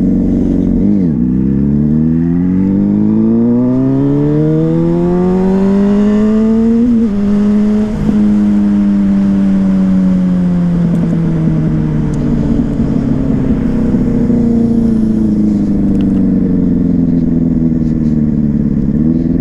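Yamaha Fazer 600 inline-four motorcycle engine with a WR slip-on exhaust, under way. The revs climb steadily over the first several seconds, break with a gear change about seven seconds in, then fall slowly as the bike rolls off. The owner finds the engine running too fast ('muito acelerada') once warm, a fault he suspects is caused by bad fuel.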